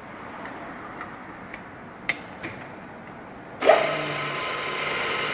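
Milling machine motor switched on about two-thirds of the way in: a sudden jolt at start-up, then a steady whine with a low hum as it runs. A few light clicks and knocks come before it.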